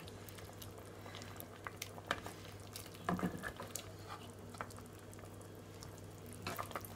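A ladle scraping and clicking against a metal cooking pot as pieces of boiled meat are lifted out of the stock, with faint liquid sloshing. A steady low hum runs underneath.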